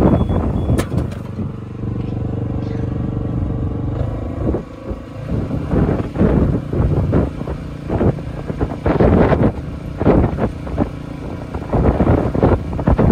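An engine running steadily for a few seconds, starting about a second and a half in, followed by a string of irregular noisy bursts.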